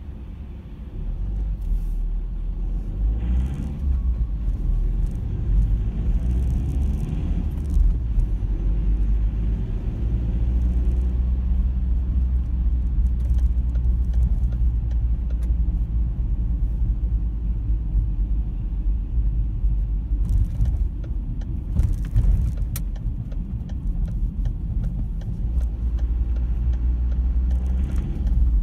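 Car driving on city streets, heard from inside the cabin: a steady low rumble of road and engine noise that gets a little louder about a second in, with occasional light rattles and clicks.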